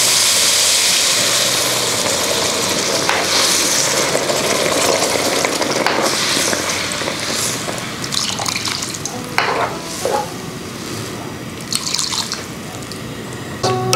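Chicken stock poured into a hot wok of stir-fried vegetables, sizzling and hissing loudly at first and dying down as the liquid takes over the heat. A wooden spoon stirs and knocks against the wok a few times in the second half.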